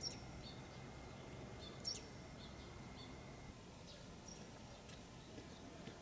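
Faint outdoor ambience with a few short, high bird chirps, the loudest near the start and about two seconds in, over a faint steady high tone that stops about halfway through.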